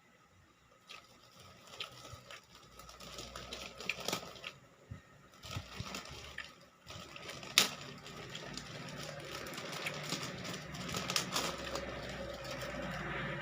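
Close-miked eating: chewing and crunching with a dense run of small clicks and crackles, busier in the second half, and one sharp louder click about seven and a half seconds in.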